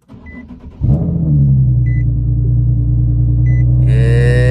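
Car engine cold start: the starter cranks briefly, the engine catches a little under a second in with a short flare, then settles into a steady idle. Three short beeps sound about a second and a half apart, and a long drawn-out vocal sound comes in near the end.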